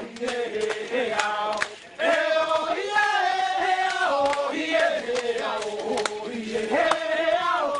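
Men of a Vanuatu customary dance group chanting together in unison, the song moving in short phrases and breaking off briefly about two seconds in, with sharp percussive knocks among the voices.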